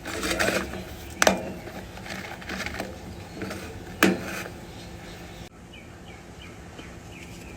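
Knocks and clatter of small parts being handled during the fuel gauge install, with two sharper knocks about a second and four seconds in.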